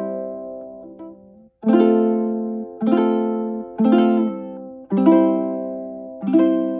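Kanile'a Platinum LE tenor ukulele playing chords. Each chord is struck about once a second and left to ring and fade, with a brief stop between chords about a second and a half in.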